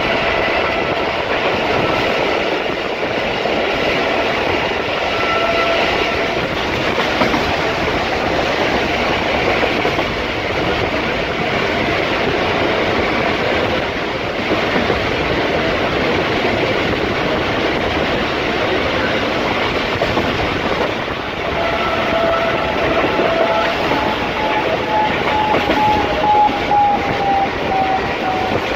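Passenger train running at speed, heard from inside a coach at the window: a steady rush and rumble of wheels on rail with clickety-clack. A faint pitched tone is held over the first few seconds and returns late, sliding down in pitch near the end.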